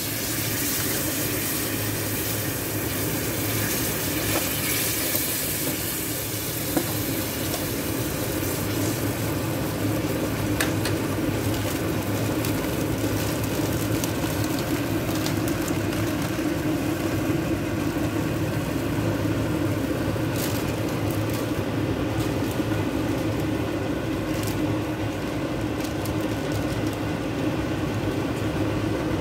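Sauce sizzling and bubbling on a hot oval sizzling plate over a gas burner: a steady hiss with occasional sharp pops, over a constant low hum.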